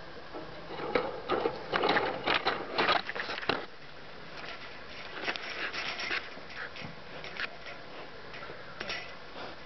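Basset hound puppy snuffling and nosing right up close, with rustling, scraping and clicking. The noise is loudest and densest from about one to three and a half seconds in, then thins to lighter scrapes and clicks.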